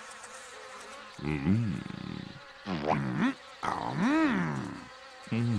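Cartoon insect buzzing, with a character making short hummed grunts, four of them, each rising and falling in pitch.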